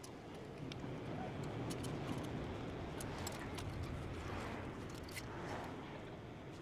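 Light handling noise from threading a plastic zip tie through an aluminium transmission cooler and fitting it against a car's radiator: scattered faint clicks and ticks over a steady low background hum.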